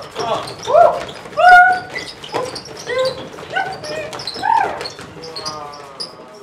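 Several performers' voices giving short dog-like yelps and whimpers one after another, each cry rising and falling in pitch. Near the end the cries give way to a softer run of falling, sliding tones.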